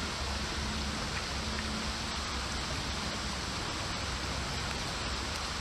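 Creek water rushing steadily, an even unbroken wash of noise.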